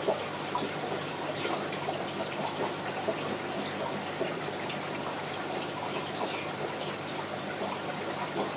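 Aquarium water trickling and bubbling steadily, full of small splashes and drips, over a faint steady low hum.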